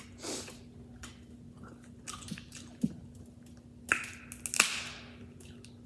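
Close-up eating of boiled crab and lobster: chewing with wet clicks and smacks, and a couple of louder, longer crunchy sounds of shell being handled about four seconds in. A faint steady hum lies underneath.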